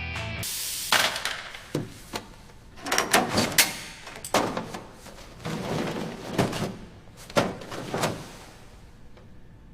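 A run of irregular knocks and clanks, some single and some in quick clusters, like tools and parts being handled and struck while work starts on an engine. Background music cuts off about half a second in.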